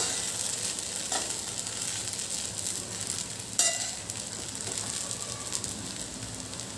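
Sabudana khichdi sizzling in a hot kadhai as it is stirred and tossed with a spatula, with a steady hiss and a few sharp clicks of the spatula against the pan, the loudest about three and a half seconds in.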